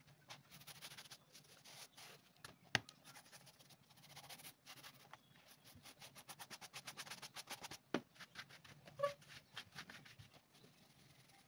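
Quick, repeated scraping strokes of a hand tool against the underside of a leather sandal, stripping leftover old sole material so the glue for the new sole will grip. Two sharp knocks, about three and eight seconds in.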